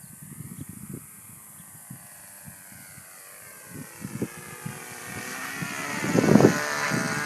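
RC airplane's two-stroke engine in flight, a whine that grows louder as the plane comes close, peaking about six seconds in while its pitch falls. Low irregular thumps run underneath.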